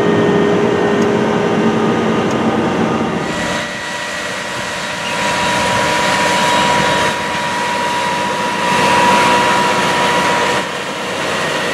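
Case IH Steiger 420's diesel engine running under load as it pulls a 16-row corn planter, heard first as a steady drone inside the cab, then from outside after about three seconds, where it is brighter, with a steady high whine over the engine noise.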